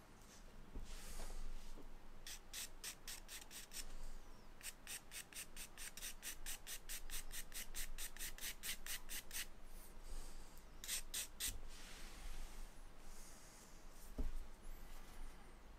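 Stick of charcoal hatching on drawing paper: rapid, scratchy back-and-forth strokes at about four a second, in several runs, the longest lasting about five seconds.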